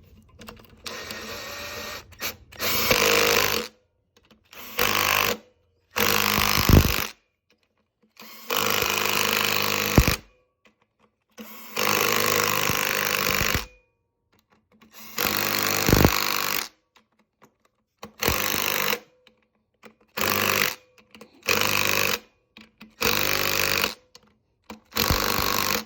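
Power driver running the clutch spring bolts into a Yamaha YZ125's clutch in about a dozen short runs of one to two seconds each, stopping and starting between bolts.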